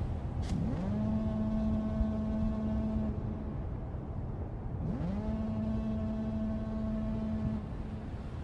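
Dark ambient drone track: a low rumbling bed of noise with two long, low horn-like tones, each sliding up in pitch at the start and then held for about two and a half seconds, the second coming about four seconds after the first.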